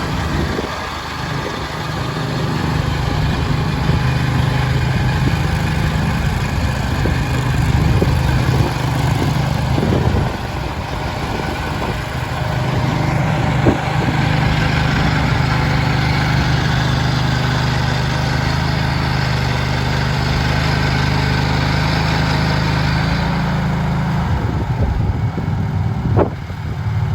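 Skid steer engine running steadily, its speed and load shifting a few times, with a sharp knock about halfway through and another near the end.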